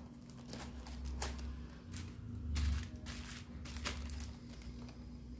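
Handling noise from the parts of a rubber-powered ornithopter toy: a thin wooden stick being pushed and turned in an orange plastic fitting, giving scattered small clicks and rustles, the loudest a little past halfway.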